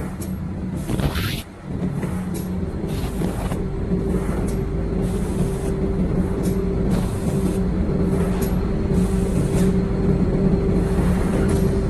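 CNC automatic stud welding machine running: a steady hum with short bursts of compressed-air hiss every second or two, from the pneumatic stud feed and cylinders.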